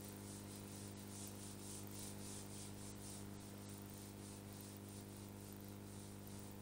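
Faint back-and-forth rubbing of a whiteboard eraser wiping marker off a whiteboard, in even strokes about three a second, over a steady low electrical hum.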